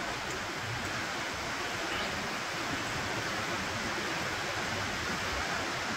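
River water rushing steadily, an even hiss.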